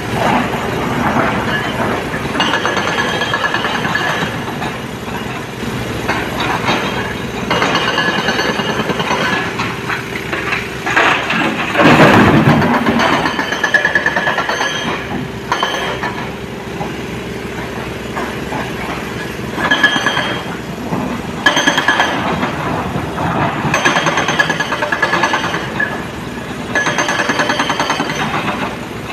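Heavy diesel machinery running with continual clanking and rattling, and one loud crash about twelve seconds in.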